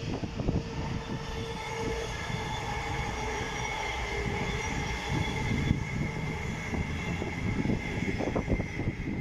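A pair of Class 221 Super Voyager diesel-electric trains passing through the station at speed: a steady rumble of wheels on rail, with several steady high whining tones over it.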